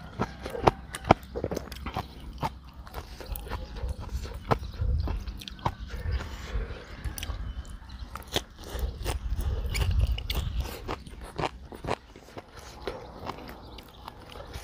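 Close-miked chewing of a mouthful of green papaya salad with raw shrimp and raw Thai eggplant: many sharp, crisp crunches and bites, with heavier chewing about five seconds in and again around ten seconds.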